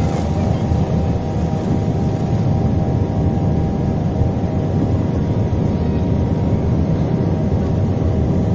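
Jet airliner engines heard from inside the passenger cabin: a loud, steady rumble with several steady engine tones over it.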